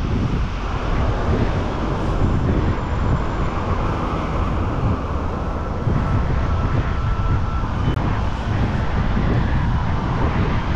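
Strong gale wind buffeting the microphone: a continuous loud rush with a heavy, gusting low rumble.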